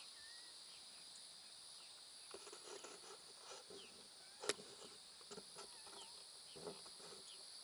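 Faint outdoor ambience: a steady, high insect drone with a few short bird chirps, a few soft knocks, and one sharp tap about four and a half seconds in.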